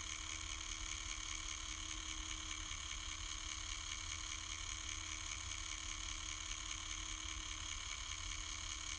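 Steady electric hum and hiss from the small motor of a remote-controlled camera dolly, picked up by the camera riding on the dolly.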